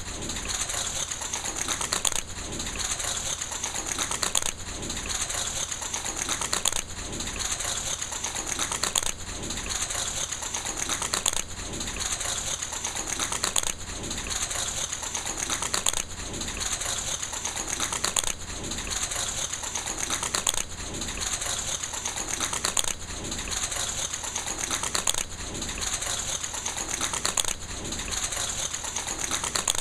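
A fast, dense clatter of clicks, like typewriter keys, repeating as a loop about every two and a quarter seconds, each pass swelling to a louder click at its end.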